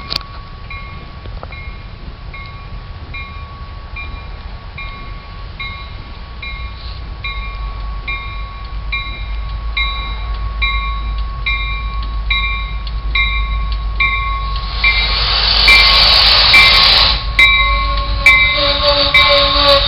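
Railroad crossing bell dinging steadily, about one and a half strikes a second, as an MBTA commuter train approaches with a growing rumble. A loud rush of noise comes in about three quarters through, and horn-like tones sound near the end.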